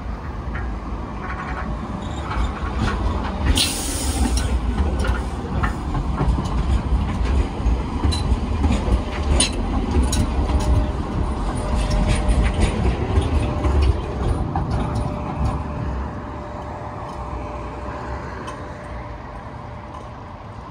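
Sheffield Supertram tram passing close by on street-running track: a low rumble builds as it approaches, is loudest with a run of sharp wheel clicks over the rails as it goes by, then fades as it moves away. A brief hiss sounds about three and a half seconds in.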